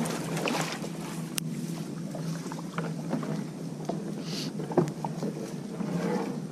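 Kayak paddling: paddle blades swishing and splashing through the water in repeated swells, with a couple of sharp knocks.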